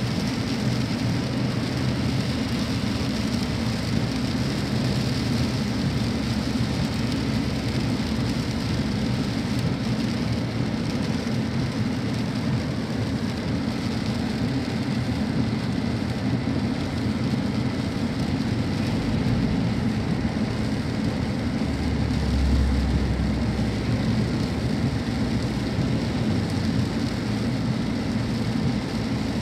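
Steady inside-the-cabin noise of a car driving on a wet road in the rain: a low engine and tyre rumble under the hiss of rain and spray on the car. A deeper rumble swells briefly about three-quarters of the way through.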